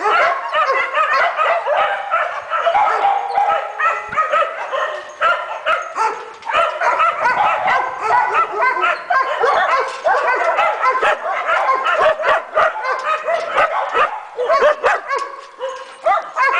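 Several dogs barking and yipping together, short calls overlapping one another in a continuous chorus.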